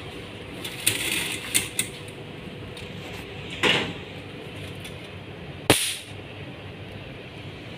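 Kitchen work noises over a steady hum of kitchen equipment. A few quick clicks and light knocks come about a second in, then a short rustle near four seconds. One sharp knock, the loudest sound, comes just before six seconds.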